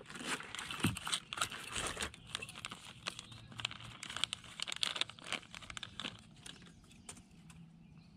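Plastic fishing-lure packaging crinkling as it is handled, a quick run of small crackles that thins out near the end.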